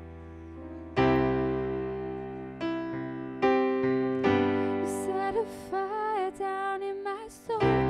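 Slow worship song on an electric keyboard, sustained piano chords struck anew every second or so. A woman's voice comes in about five seconds in, singing a slow melody over them.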